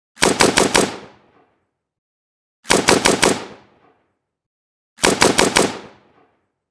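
AK-47 assault rifle firing three short bursts of automatic fire, about five rounds each, a couple of seconds apart. Each burst has a ringing echo that dies away within about a second.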